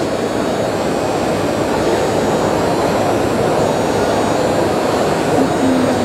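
Electric hydraulic pump of an E & P Level C caravan levelling system running steadily as it retracts the hydraulic corner steadies.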